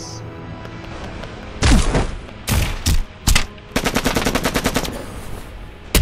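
Gunfire sound effects: four separate gunshots, then a burst of rapid automatic fire lasting about a second, over background music.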